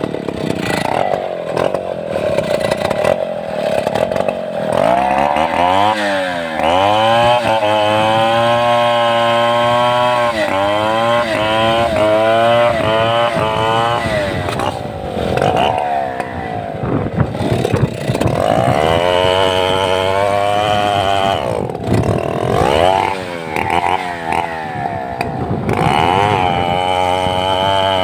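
Stihl 070 two-stroke chainsaw, low at first, then revving up about five seconds in and running at full throttle, its pitch wavering as it cuts sengon wood. It eases off twice and revs up again.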